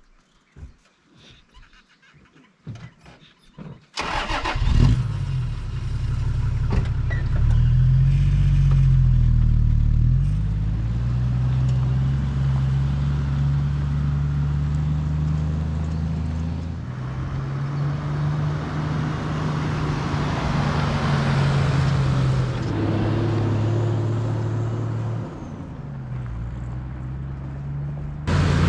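A few faint clicks and knocks, then about four seconds in a Toyota LandCruiser Troopcarrier's engine starts and runs loud as the vehicle drives off. Its pitch rises and drops several times as it accelerates and changes gear.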